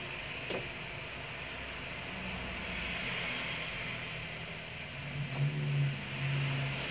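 Steady background noise with a sharp click about half a second in and a low hum that swells from about five seconds in.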